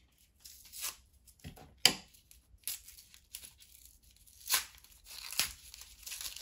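Packaging being torn and crinkled open by hand as a small item is unwrapped: scattered rustles and crackles with short pauses between, the sharpest and loudest about two seconds in.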